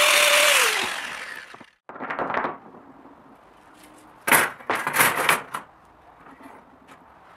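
An angle grinder runs with its disc grinding a small steel part, then is switched off and its pitch falls as it winds down. After a brief gap, long flat steel skewers are laid down on a plywood bench with a short clatter, then a louder run of metallic clanks about four to five seconds in.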